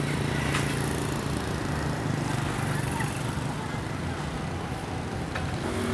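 Street ambience: a steady hum of motorbike and traffic engines with faint voices, and a couple of sharp clicks.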